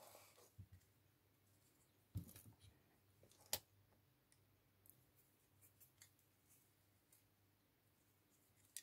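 Near silence broken by a few faint clicks and taps of small plastic parts being handled, the clearest about two and three and a half seconds in.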